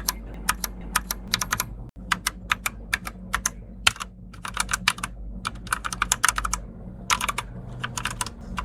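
Keys being typed on an EvoFox Katana X2 mechanical keyboard with red linear switches: quick, uneven runs of sharp key clacks.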